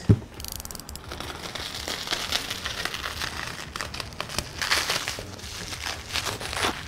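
Bubble wrap crinkling and crackling as it is cut and pulled off a stainless steel exhaust downpipe, with a short thump at the very start.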